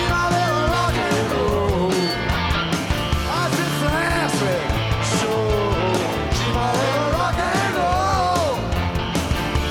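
Live rock band playing a rock and roll song on electric guitars, bass and drums, with a lead line that slides up and down in pitch in short phrases over the steady beat.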